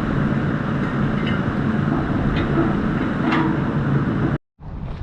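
An engine running steadily, with a few light metal clicks over it; it cuts off abruptly about four and a half seconds in and comes back much quieter.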